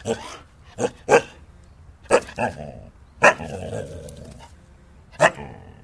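Siberian husky barking: about seven sharp single barks at uneven intervals, with one longer drawn-out call just after the bark about three seconds in.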